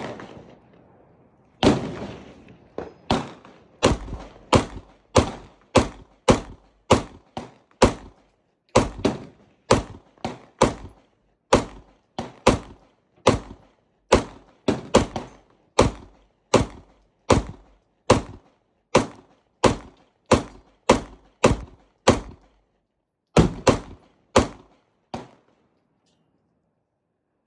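Glock 19 9mm pistol firing shot after shot, about two shots a second, with a few short pauses between strings, then stopping about 25 seconds in.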